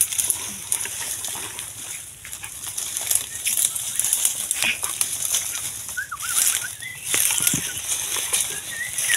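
Rustling and light knocks of leaf litter and loose oil palm fruitlets being gathered by hand, over a steady high hiss, with a bird giving short wavering whistles about six seconds in and again near the end.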